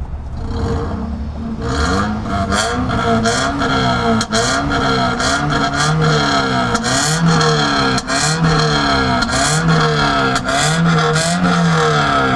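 Toyota Corolla GLi's petrol engine revved up and down over and over in quick blips, roughly once a second, with a sharp rasp at several of the blips.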